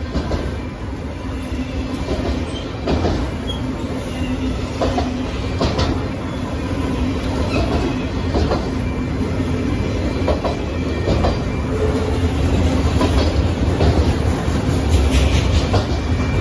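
Enclosed autorack freight cars rolling past close by: a steady rumble of steel wheels on rail with irregular clicks and clanks from the wheels and couplings, growing a little louder near the end.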